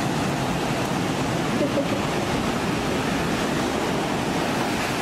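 Ocean surf breaking on a sandy beach, a steady rush of waves and foam.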